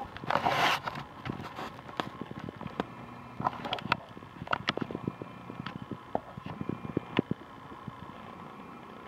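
A short burst of close rustling about half a second in, then scattered light crackles and ticks at irregular intervals, of dry leaves and twigs on the forest floor.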